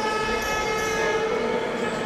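Several steady, held horn-like tones sounding together, their pitches shifting slightly partway through.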